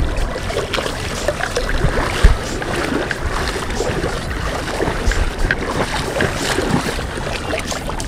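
A hooked smallmouth bass splashing and thrashing in shallow river water as it is landed, with rough water noise and wind on the microphone. A sharp low thump about two seconds in.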